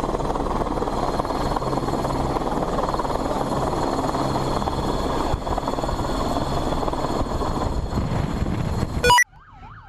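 Steady helicopter rotor and engine noise, which cuts off abruptly near the end. A quieter wailing siren follows, rising and falling several times a second.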